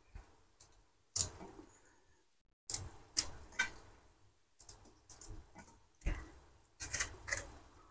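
Small paring knife cutting green chillies in the hand, pieces falling into a steel pressure cooker: about ten short, crisp clicks at uneven intervals.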